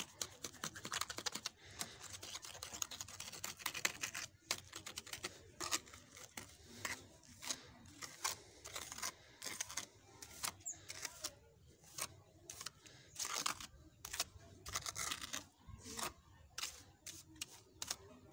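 A trowel scraping and spreading wet cement mortar along the edge of a concrete slab, in a quick run of short, irregular strokes.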